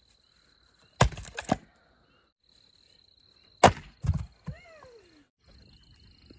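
An axe splitting firewood on a chopping block: two sharp chops, about a second in and again more than two seconds later, each followed by a clatter of split pieces. Near the end, a faint crackle of a campfire.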